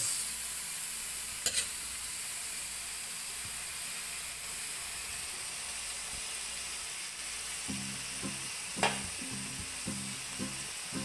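Canned sardines frying in hot oil with sautéed onion, sizzling steadily as they are stirred in the pan. Two sharp knocks, about a second and a half in and about nine seconds in.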